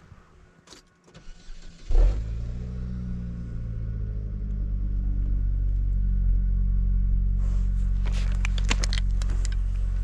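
Car engine starting about two seconds in and settling into a steady idle, its pitch wavering briefly before it holds. Near the end a snow brush scrapes against packed snow on the car over the idling engine.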